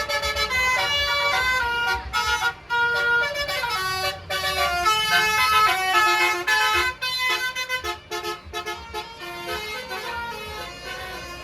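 Basuri telolet multi-tone horn on a tour bus playing a quick melody of short stepped notes, over a low rumble. It grows softer near the end.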